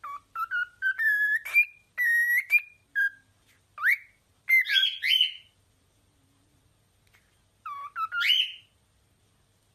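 A bird whistling: a quick run of short whistled notes, then rising swooping calls, a pause of about two seconds, and one more rising call near the end.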